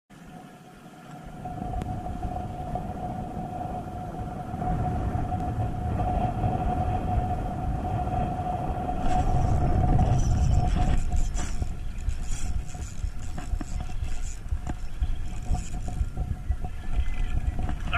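Wind buffeting an action camera's microphone in a low, uneven rumble, with a steady hum underneath. Light clicks come through in the second half.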